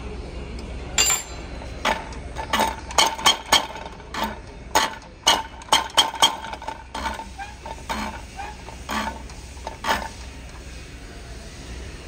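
Diesel injector nozzle on a hand-lever pop tester, spraying in short, sharp pops as the lever is pumped: about fifteen irregular pops, thickest a few seconds in and thinning out toward the end. The nozzle is being tested for opening and spray pattern.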